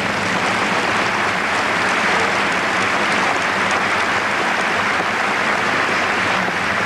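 Large crowd applauding steadily in a big hall.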